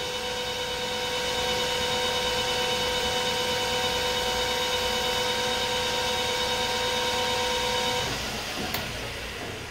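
Metal lathe running with a steady, multi-toned whine while center-drilling the end of round stock held in a three-jaw chuck. The whine stops about eight seconds in, followed by a click, and the remaining noise fades as the lathe spins down.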